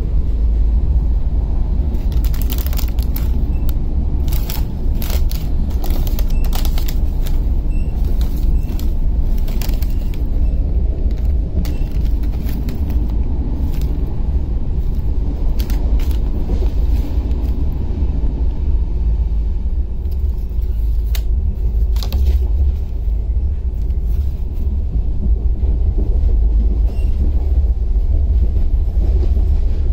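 Steady low rumble of a moving passenger train heard from inside the coach. Over it come sharp crackles and clicks, thickest in the first half, as plastic snack packets and a flask are handled.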